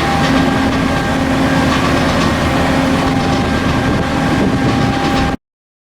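Ship's machinery running steadily: a loud, constant mechanical hum over a rough low rumble, cutting off abruptly about five seconds in.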